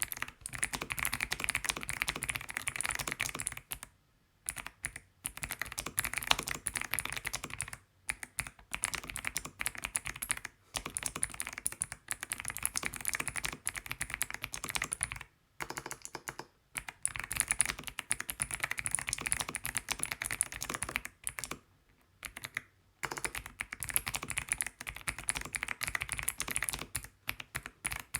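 Fast continuous typing on a mechanical keyboard with Akko Creamy Cyan clicky switches, each keystroke giving a sharp high click, in bursts of a few seconds separated by brief pauses.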